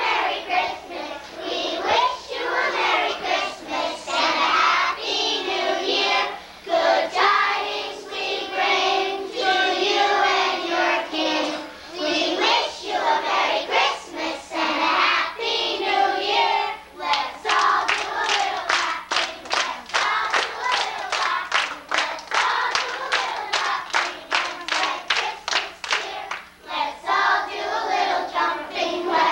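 A group of young children singing together. About halfway through they start clapping in a steady rhythm, about three claps a second, while still singing, and the clapping stops shortly before the end.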